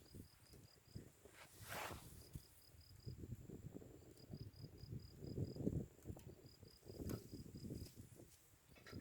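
An insect, cricket-like, chirping faintly in repeated short trains of quick high pulses, about a second apart. Under it runs a soft, irregular low crackling, typical of a campfire burning.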